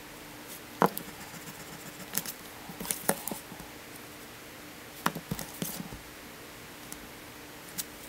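Drawing tools handled on paper on a desk: a wooden ruler and pencil being set down and moved, giving a scattering of sharp taps and clicks with short scrapes between them, the sharpest tap a little under a second in.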